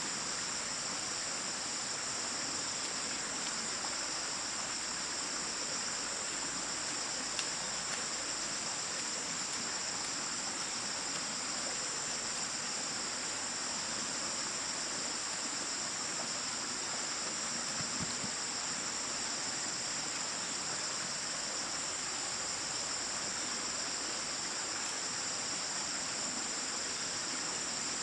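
Steady chorus of insects, crickets or cicadas, a continuous shrill high-pitched buzz, with a couple of faint brief clicks.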